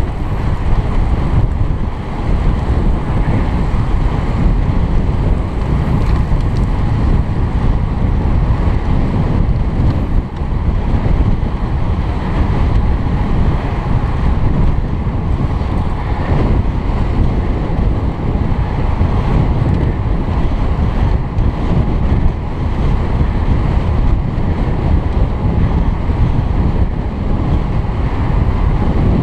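Wind rushing over a helmet-mounted camera's microphone while riding a road bicycle at racing speed: a steady, loud rumble.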